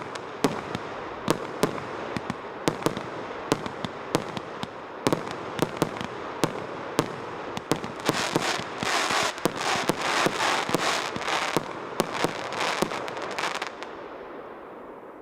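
СП038100 "Lava" firework going off: sharp bangs about every half second over a continuous crackle. The crackling thickens about halfway through, then the bangs stop near the end and the crackle dies away.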